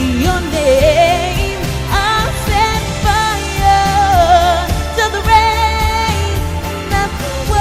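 A woman singing a pop ballad over an instrumental accompaniment with a bass line and steady beat, holding long notes with vibrato.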